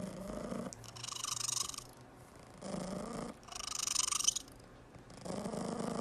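Black cat purring, the purr rising and falling with its breathing in cycles about every two and a half seconds, each cycle a low rumble followed by a raspier phase.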